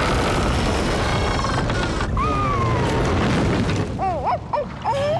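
Cartoon sound effect of a sunken wooden ship shifting on the seabed: a long rumble with a drawn-out falling creak, under dramatic background music. A few short cries come near the end.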